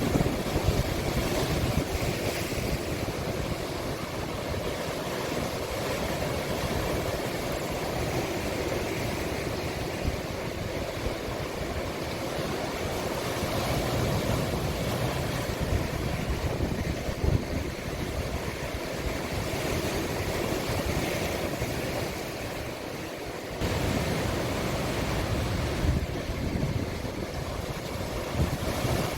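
Sea waves breaking and washing into a small rocky cove, a continuous surf wash, with wind rumbling on the microphone. The level steps up suddenly about three quarters of the way through.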